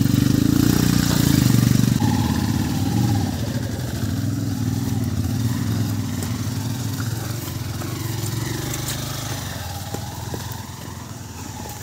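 Motorcycle engine running, loudest in the first two seconds and then gradually quieter.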